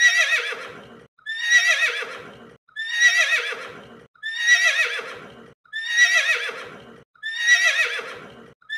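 Horse whinnying over and over: the same quavering, high call, falling lower as it trails off, repeated about every one and a half seconds, six times with the start of a seventh at the very end. Each call is identical, one recording looped.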